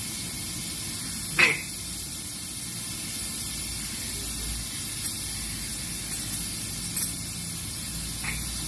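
Steady hiss, with a sharp click about a second and a half in and fainter clicks near the end.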